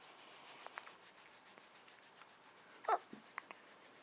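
Faint rustling of a baby's clothing or blanket, with one short hiccup from the baby about three seconds in.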